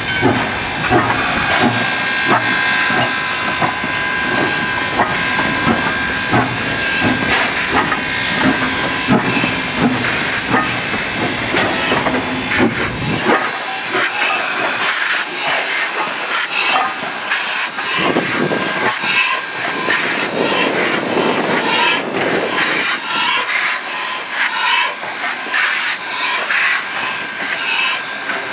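Two 2-8-2 Mikado steam locomotives, Valley Railroad No. 40 and No. 3025, moving slowly as a doubleheader: steady steam hissing with repeated sharp clanks and knocks from the running gear. A deep rumble under it drops away about halfway through.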